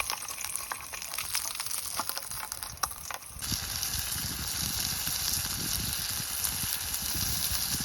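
Burgers frying in a pan, crackling with small pops over a hiss for the first few seconds, then a steadier, fuller sizzle from about three and a half seconds in that cuts off abruptly.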